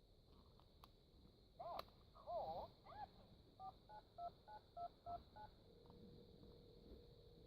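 VTech Tiny Touch toy phone playing its electronic sound effects: a couple of faint button clicks, a short warbling electronic tune, then a quick run of about eight short two-note beeps like dialing tones. From about six seconds in a steady electronic tone holds.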